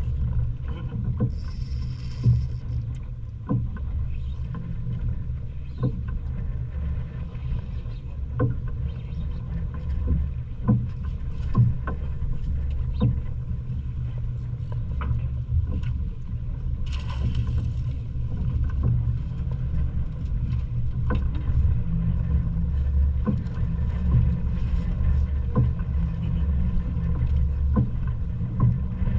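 Boat engine running steadily, a low hum with irregular short knocks over it.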